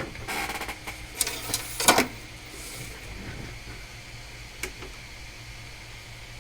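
A quick rattle and then a few sharp clicks as the power adapter cable is handled and plugged in, over a steady low hum.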